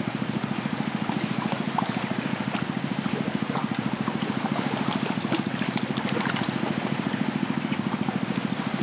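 Pot of liquid boiling over a wood fire: a steady low rumble with scattered small pops and crackles.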